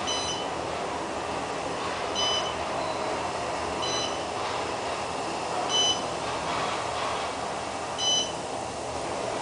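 Otis parking-garage elevator car travelling up with a steady running noise, while a short electronic beep sounds five times at roughly two-second intervals.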